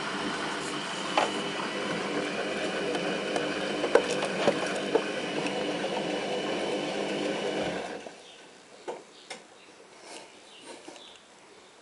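Front-loading washing machine tumbling a load: the drum motor runs steadily with water sloshing and a few knocks, then stops suddenly about eight seconds in, leaving faint splashes and clicks.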